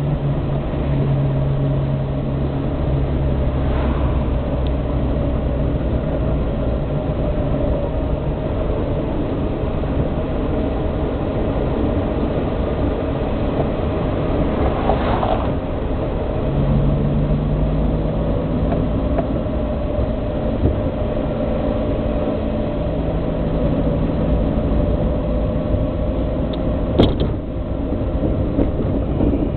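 Austin A40 Farina's BMC A-series four-cylinder engine running under way, with road and wind noise, heard from inside the cabin; the engine note shifts a few times. An oncoming car passes about halfway through, and there is a sharp click near the end.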